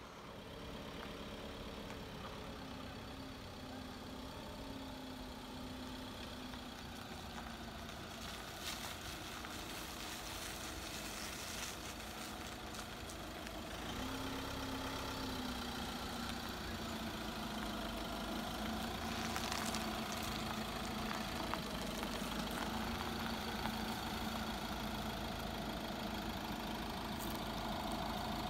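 Diesel engine of a Chausson motorhome built on a Fiat Ducato base, idling and running at low revs as the motorhome creeps onto its pitch. It gets louder about halfway through.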